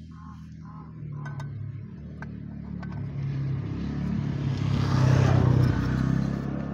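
A passing motor vehicle: a low engine hum that swells to its loudest about five seconds in and then eases off. A few light clicks come in the first three seconds.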